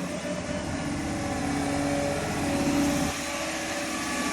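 Diesel engine of a Sany 265 tracked excavator running under hydraulic load as the machine turns on its tracks, its pitch rising a little and then dropping back about three seconds in.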